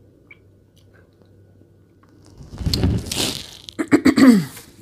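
Plastic candy wrappers crinkling as a doll made of wrapped candies is handled and moved, starting a little over two seconds in. Near the end comes a short voiced hum that falls in pitch, mixed with more crinkling.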